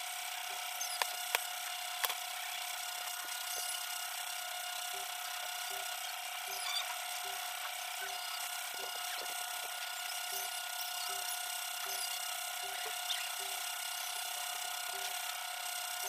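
A metal spoon scraping seeds out of a halved papaya on a plastic cutting board, with three sharp taps about one to two seconds in. Behind it runs a steady hiss and hum, with a faint regular ticking of about two to three a second from a third of the way in.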